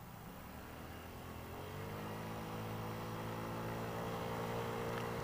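Honda Ruckus 49cc single-cylinder four-stroke scooter engine picking up revs under throttle, rising in pitch about a second and a half in and then holding a steady, louder note.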